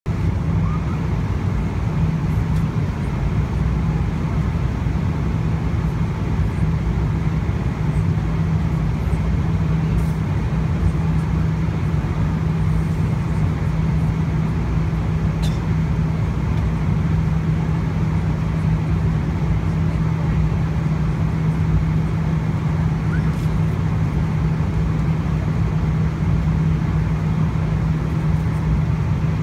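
Steady airliner cabin noise at cruise altitude: an even, constant roar of engines and airflow with a steady low hum running through it.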